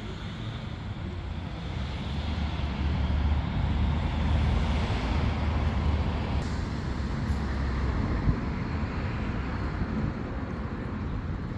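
Steady outdoor background noise made up mostly of a low, uneven rumble with a hiss over it, growing slightly louder a couple of seconds in.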